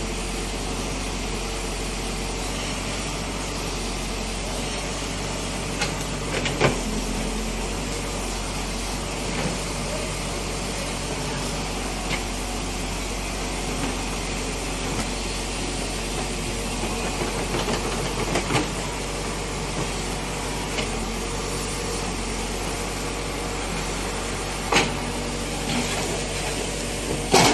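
Backhoe loader's diesel engine running steadily while the backhoe digs, with a few sharp knocks, two close together about six seconds in and another near the end.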